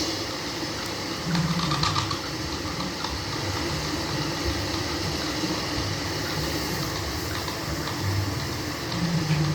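Turning lathe running with a steady mechanical hum, with a few faint clicks.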